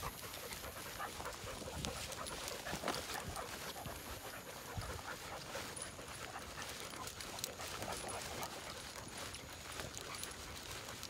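A hunting dog panting close by, over the steady rustle and crunch of footsteps through grass and brush.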